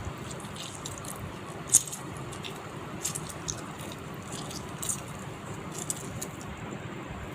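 Wet squishing from hands squeezing lemon juice over raw boneless chicken and mixing it in, with scattered soft squelches and one sharper click about two seconds in, over a steady hiss.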